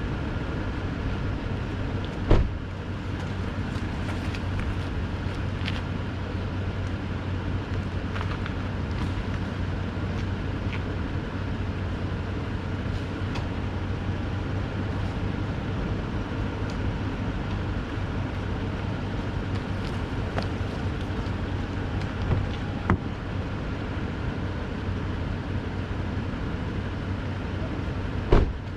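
Toyota Tundra's V8 running low and steady as the truck crawls a rocky off-road trail, with a steady low hum and a few sharp knocks: once about two seconds in, twice a little past the middle, and once near the end.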